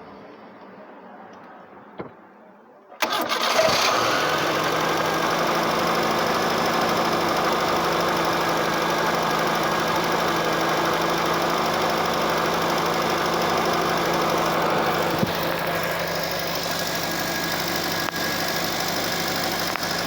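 Dacia car engine starting about three seconds in after a single click, catching almost at once, then idling steadily. The idle has just been adjusted, and the owner does not think it is running on three cylinders.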